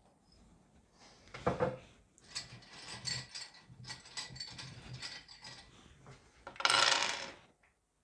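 Loose plastic keycaps rattling and clattering as a hand rummages through them in a bowl, with a louder clatter about a second and a half in and again near the end.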